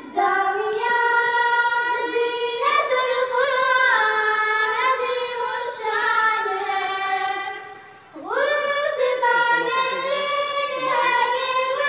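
A child's voice singing solo with no instruments, in long held high notes with wavering ornamented turns. The voice breaks off briefly about eight seconds in, then comes back on a rising note.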